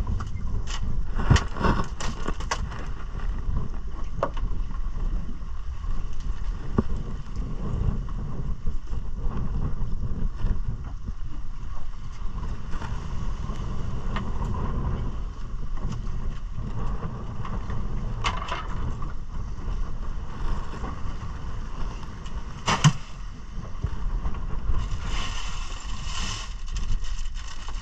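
Steady low rumble of wind and sea around a small fishing boat, with a few sharp knocks, and a plastic bag of ice crinkling near the end.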